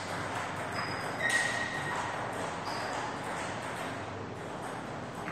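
Plastic table tennis ball bounced before a serve: one clear ping about a second in, with a short ringing tone, then a few fainter taps, over steady room noise.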